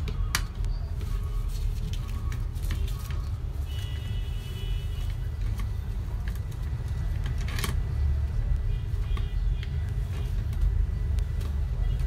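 Socket wrench turning a screw out of a vacuum-cleaner motor's end housing: a few sharp metal clicks and faint scrapes, over a steady low rumble.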